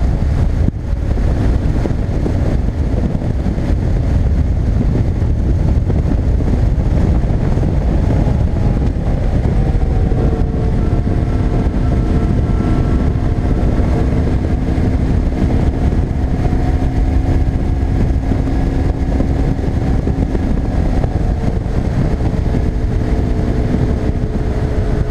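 BMW R1150GS boxer-twin motorcycle riding at road speed, its engine under a heavy rush of wind on the microphone. From about eight seconds in, the engine's tone comes through more clearly, dropping a little in pitch and then holding steady.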